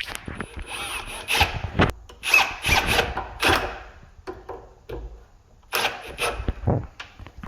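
Parts of a smart door lock scraping and rubbing against the door as the lock is fitted into the door's hole. There are several short scraping bursts over the first four seconds, then two more about six seconds in.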